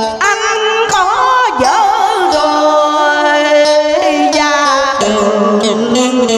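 A woman singing long, wavering held notes in the Vietnamese đờn ca tài tử folk style, accompanied by plucked electric guitar.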